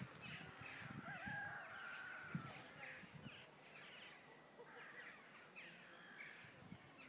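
Faint, continuous chorus of overlapping harsh bird calls: many short falling calls, with a few longer held notes about a second in, and soft low thumps underneath.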